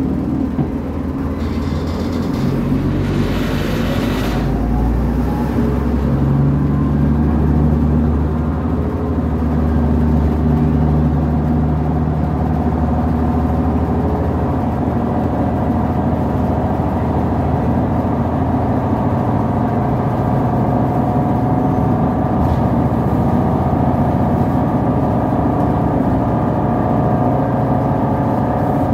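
City transit bus heard from inside the passenger cabin: its engine and drivetrain rise in pitch as it speeds up in the first few seconds, with a brief hiss about three seconds in, then run steadily over road noise.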